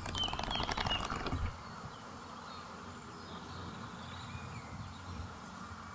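Bees buzzing, a steady low hum throughout, with a burst of crackling clicks over the first second and a half.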